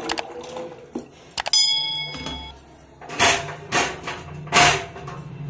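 Macaroni tipped from a plastic colander into a steel pot of hot water: a few knocks, then a metallic clink that rings for about a second, followed by three short noisy bursts.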